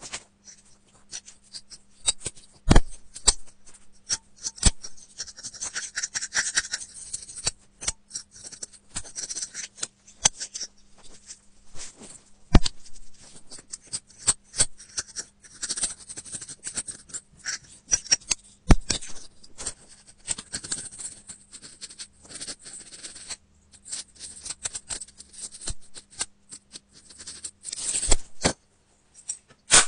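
A thin metal pick scraping and picking inside an iPhone's Lightning charging port, working out packed lint: close, dry scratching with many scattered sharp clicks, four of them much louder than the rest.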